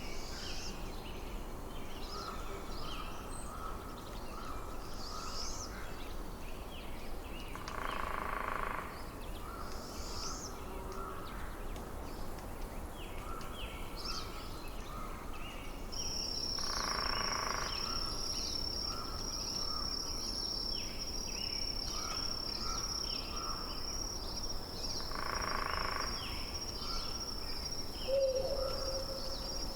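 Nature ambience: small birds chirping in quick short notes, with a louder call about a second long that repeats every eight or nine seconds. A steady high-pitched trill starts about halfway through and continues.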